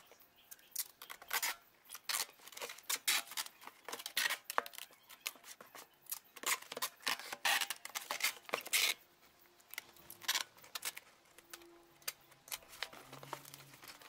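Tape pulled off the roll and cut in a series of short strips while taping cardboard, with many quick sharp pulls and brief pauses between them.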